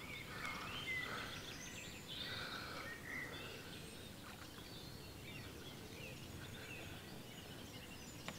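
Faint birdsong over low outdoor background noise: scattered short chirps and brief whistled notes, a little stronger in the first three seconds.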